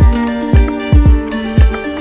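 Background music: plucked-string melody over sustained notes, with a steady beat of deep drum hits about twice a second.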